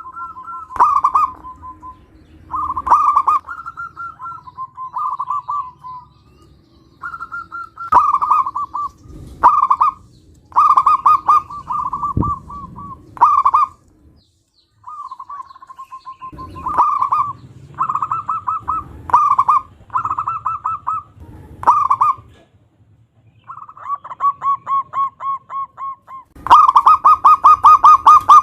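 Zebra dove (perkutut) cooing: repeated phrases of quick, rolling pulsed coos with short pauses between them, the loudest and fastest run coming near the end.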